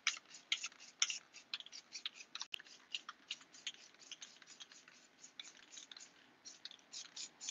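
Aerosol can of clear matte spray finish being shaken, its mixing ball rattling in a faint, fast run of clicks, several a second.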